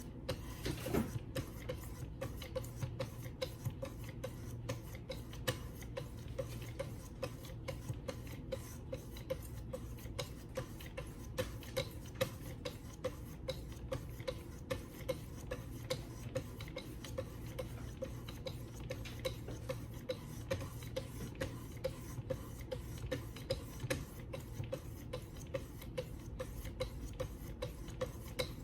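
Wicked Edge guided sharpener's 1000-grit stones stroked back and forth along the D2 steel edge of an Ontario RAT II knife, a steady, regular rhythm of short scraping strokes over a low background hum.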